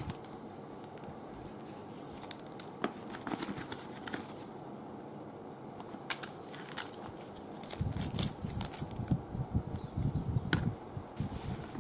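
Scattered sharp plastic-and-metal clicks from handling a Tokyo Marui Glock 17 gas blowback airsoft pistol, with a stretch of low rumbling handling noise about eight seconds in.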